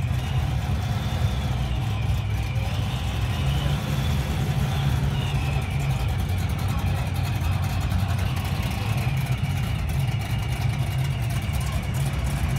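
First-generation Pontiac Firebird's engine running at a steady low idle as the car creeps along, a deep even rumble.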